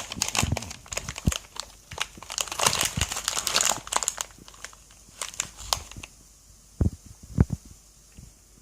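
Rapid crinkling and clicking of small craft pieces (seashells and packaging) being handled and rummaged through for about six seconds, then a few separate light knocks.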